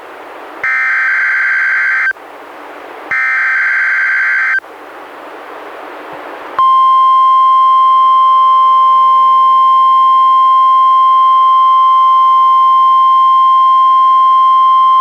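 NOAA Weather Radio's SAME digital alert header: two short bursts of buzzing data tones about a second apart, with hiss between them. About six and a half seconds in comes the 1050 Hz warning alarm tone, one steady high tone held to the end, sounded here as a required weekly test.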